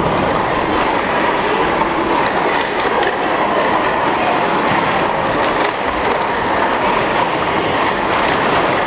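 Plastic sport-stacking cups clattering as they are rapidly stacked up and down, a dense, fast stream of light clicks over steady background noise.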